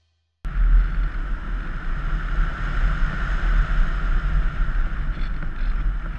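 Wind noise on the microphone of a GoPro mounted on a ParkZone Radian RC glider in flight: loud low buffeting with a steady rushing hiss, cutting in suddenly about half a second in.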